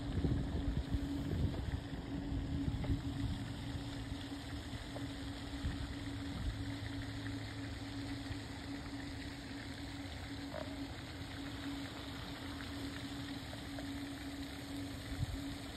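A steady motor hum at one pitch, with low rumbling of wind on the microphone that is strongest in the first few seconds.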